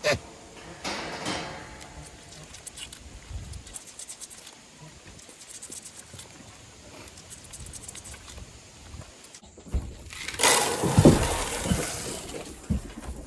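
Dry mixed grain feed (oats, corn, sunflower seeds) pouring and rattling into a goat feeder, a loud rush with knocks about ten seconds in, after scattered light clicks.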